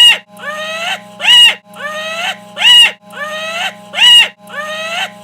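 A short scream-like cry looped in editing, repeating exactly about every 1.4 s: each time a quieter stretch, then a loud cry that rises and falls in pitch.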